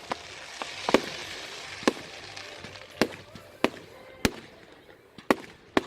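Fireworks going off: a string of sharp, irregularly spaced bangs, about eight in six seconds, over a faint hiss.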